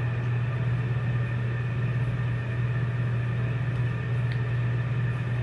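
Steady low hum with an even hiss over it, unchanging.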